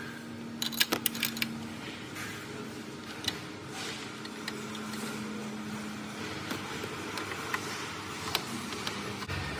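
Scattered metallic clicks and clinks of a wrench working a bolt at the foot of a steel airport-seating frame, with a quick run of sharp clicks about a second in and single clicks after. A low steady hum comes and goes underneath.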